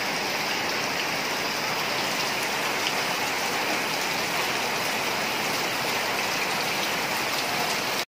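Steady rain falling on shallow floodwater, an even hiss of drops on the water's surface. It cuts off suddenly near the end.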